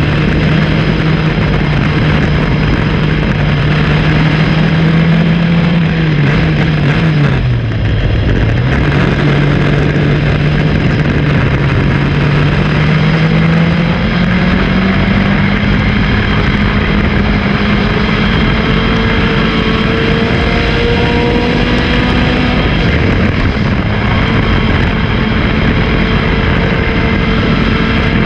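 Race car engine running hard under load, its pitch dipping once about a quarter of the way in as the car slows, then climbing slowly and steadily as it accelerates again.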